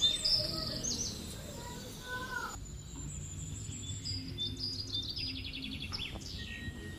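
Small birds chirping and trilling over a low steady background hum. The ambience changes abruptly about two and a half seconds in, with fast trills following.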